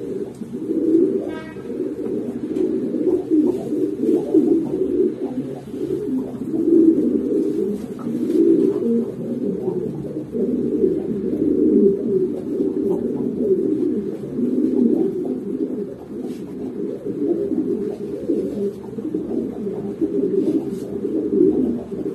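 A large flock of domestic pigeons cooing together: a dense, continuous chorus of overlapping low coos, with a few faint clicks.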